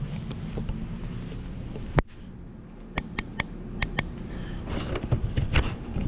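Handling noise from a camera held in the hand: sharp clicks and rubbing of fingers on the body. A low rumble cuts off with a loud click about two seconds in, and several more quick clicks follow.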